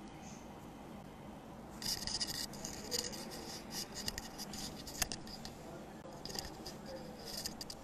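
Scratching and rustling handling noise on a wired earphone microphone as its cable is handled at the shirt collar. It starts about two seconds in, with scattered small clicks and one sharp click about five seconds in.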